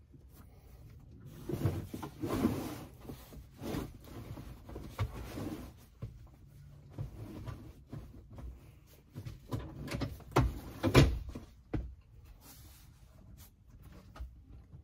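Clunks, knocks and rubbing as a bamboo center-console swivel table on a Lagun arm is swung into a new position and the van's front seat is moved. The loudest knocks come about eleven seconds in.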